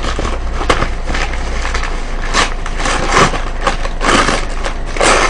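Paper bag crinkling and rustling in irregular bursts as it is squeezed and worked by hand, with several louder crackles.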